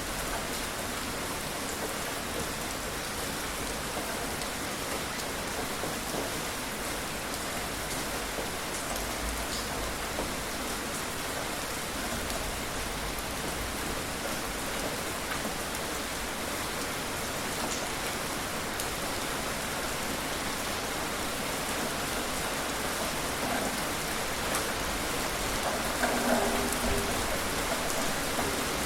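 Steady rain falling and pattering on surfaces, with scattered single drops ticking through it and a few louder splashes near the end.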